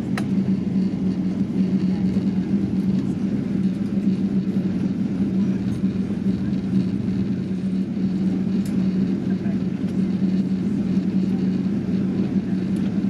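Steady vehicle cabin noise: a constant rumble with a steady low hum underneath and a few faint clicks.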